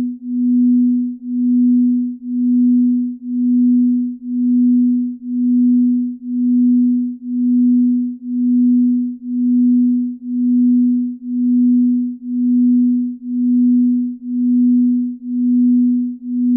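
Binaural-beat track: a low, pure steady tone that swells and fades evenly about once a second.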